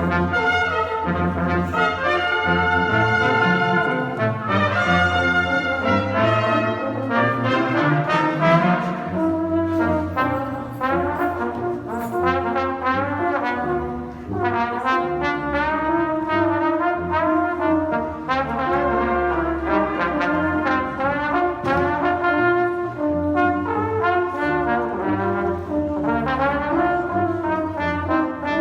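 Middle school concert band playing, brass to the fore: held chords for the first dozen seconds or so, then a more rhythmic passage of shorter notes.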